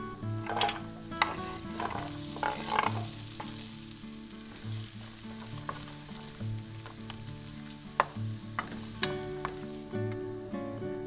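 Diced zucchini sizzling as they hit a frying pan of hot olive oil and garlic, with sharp clatters as the pieces land in the first few seconds. A wooden spoon then stirs and scrapes them around the pan.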